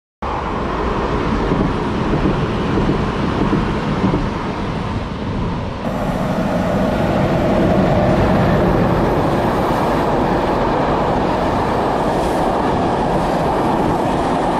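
CP electric passenger train running past: a steady rumble of wheels on rails, with an abrupt change in the sound about six seconds in.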